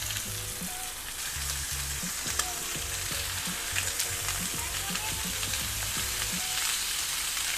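Chicken thighs sizzling in hot oil in a frying pan as they are laid in skin side down, with a few sharp spattering pops.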